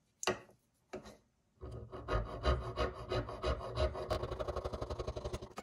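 Jeweller's saw with a spiral wax blade cutting through a block of carving wax, rasping back and forth. A couple of short strokes come first, then steady sawing from about a second and a half in, the strokes getting quicker and more even near the end.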